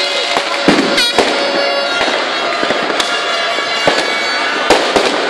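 Fireworks going off: sharp bangs and cracks at irregular intervals, the loudest about a second in and near the end. Behind them are steady, reedy toots of New Year's horns.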